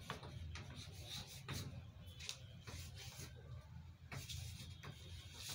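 Chalk scraping on a blackboard as words are written, in a series of short strokes, over a low steady hum.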